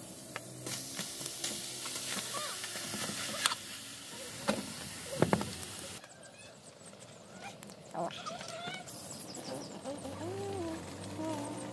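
Faint crackling and hiss of a wood cooking fire, with sharp pops now and then in the first half, and a few short animal calls.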